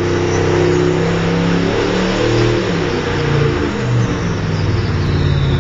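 Engine running on a dynamometer, its pitch stepping up and down as the engine speed changes.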